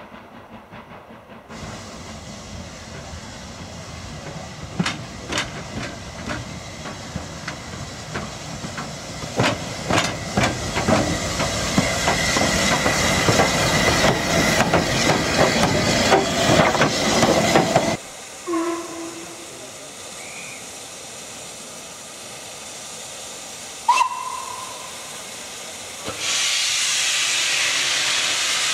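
SR S15 class 4-6-0 steam locomotive passing close by with its train: exhaust beats and the clicking of wheels over rail joints build up over about sixteen seconds, then stop suddenly. Near the end comes a loud steady hiss of steam from a locomotive starting away, its cylinder drain cocks blowing white steam.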